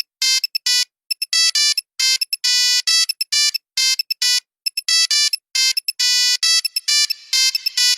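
A melody of bright, buzzy electronic beeps in the style of an old Nokia mobile-phone ringtone, one note at a time, short and longer notes with gaps between them. Near the end a hissy layer fades in under the beeps.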